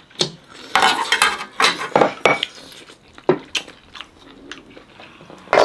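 Spoon clicking and scraping against a bowl several times as broth is scooped from the stew.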